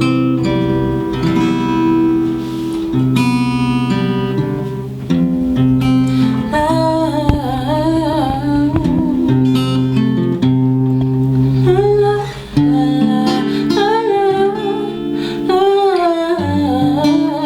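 Acoustic guitar music with chords changing every second or two, joined about six seconds in by a wavering high melody line.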